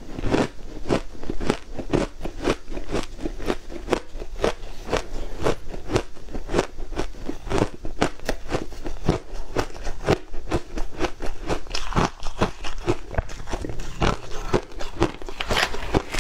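Close-up crunching of shaved ice being chewed, a steady run of crisp crunches about three a second.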